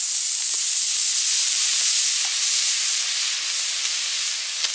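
18mm D2.3 longburn model rocket motor burning during boost: a loud, steady hiss that eases off slightly as the rocket climbs away.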